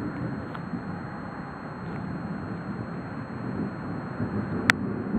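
Storm wind rumbling on the microphone, with one sharp click near the end.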